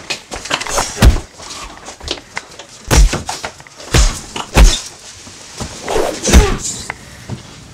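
Fist-fight hits: about five heavy punch and body-blow thuds spread over several seconds, with scuffling between them.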